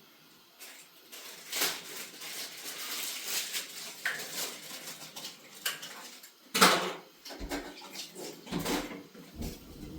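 Irregular clinks and knocks of household objects being handled, like dishes or utensils, with a louder knock about six and a half seconds in.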